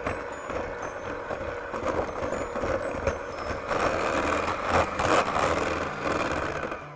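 Electric hand mixer running, its beaters churning butter and powdered sugar into buttercream frosting in a glass bowl with a steady motor hum. It gets louder about halfway through and stops just before the end.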